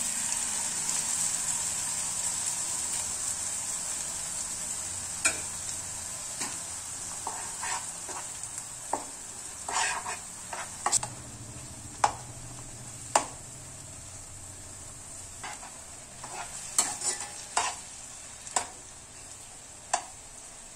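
Blended tomato sizzling in a hot non-stick pan of scrambled egg, the hiss slowly fading as it cooks down. A slotted steel spatula scrapes and taps against the pan now and then as it is stirred in.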